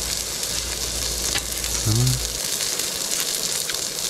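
Beef rib meat sizzling on a grill pan, a steady frying hiss with faint pops. About two seconds in there is a brief low hum.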